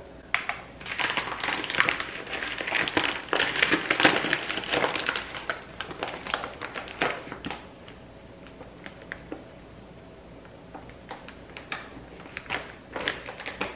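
Paper bag of bread flour crinkling and rustling as it is handled and opened, with a few more rustles near the end as the bag is tipped to pour flour into the bowl.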